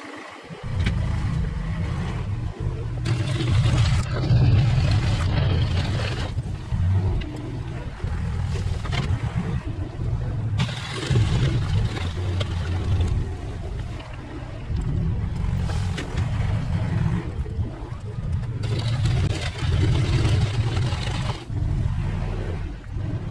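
Engine of an earth-moving machine working as it pushes dirt, its sound swelling and easing several times as the load changes.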